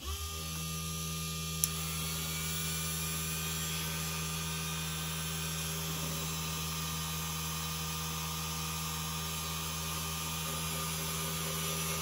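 Small benchtop mini lathe switching on and running at a steady speed, spinning a model-locomotive motor armature for a commutator polish. There is a steady hum with a light whine and a single click about a second and a half in.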